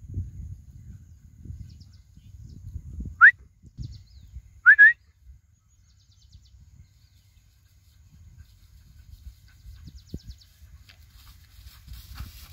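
A person whistling to call a dog: a short, sharp rising whistle, then a double rising whistle about a second and a half later, over a low rumble.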